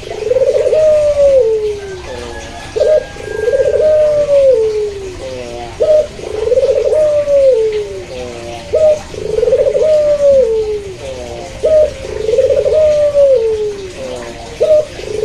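Domestic turtle dove (puter, Barbary dove) cooing repeatedly. A phrase comes about every three seconds: a short note, then a long coo that rises and falls. A fainter second dove coos in the background.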